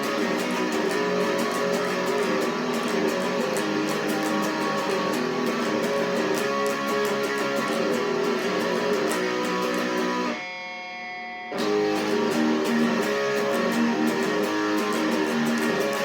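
Electric guitar played through an amplifier, strummed continuously with dense pick strokes. About ten seconds in, the strumming stops for about a second while a chord rings on, then the playing picks up again.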